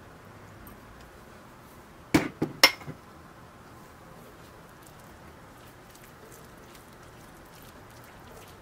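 A metal spoon or small wire whisk clinking against a glass mixing bowl, a quick run of about four clinks about two seconds in, then faint whisking through thick lemon icing.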